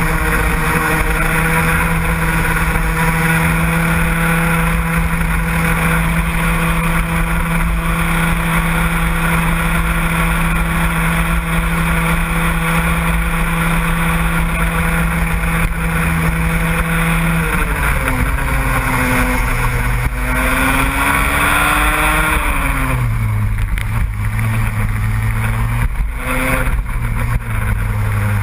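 A vehicle engine running hard at a steady pitch. About two thirds of the way in, the pitch drops, rises briefly, then falls again and settles lower as the engine eases off.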